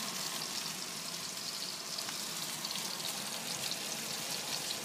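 Food frying in a pan on a stovetop: a steady sizzling hiss full of small crackles and pops.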